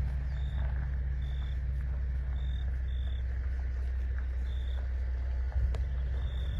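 A motor vehicle engine idling, a steady low hum. Faint short high-pitched chirps recur about once a second.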